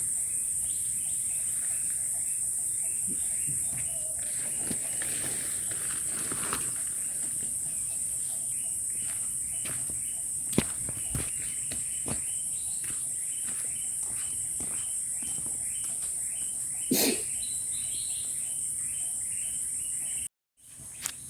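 Steady high-pitched chorus of forest insects, with a short chirping call repeated about twice a second through the middle and scattered clicks and knocks. The sound cuts out briefly near the end.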